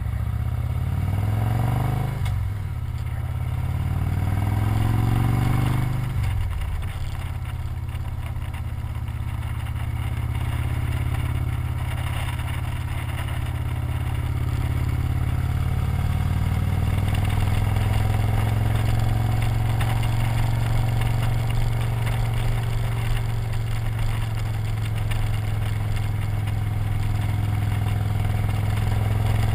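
Victory V-twin motorcycle engine heard from the rider's seat, rising in pitch twice in the first six seconds as it accelerates, then running steadily at cruising speed with wind and road noise over it.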